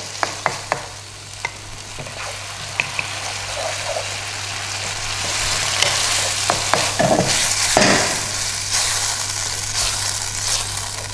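Beef, ginger, onion and wood ear mushroom stir fry sizzling in a little sauce in a non-stick pan, stirred with a wooden spatula that scrapes and taps the pan. The sizzle swells about halfway through.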